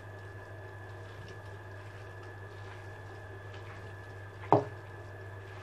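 Faint soft squelching of a hand kneading raw minced meat in a plate, over a steady low electrical hum, with one brief louder knock about four and a half seconds in.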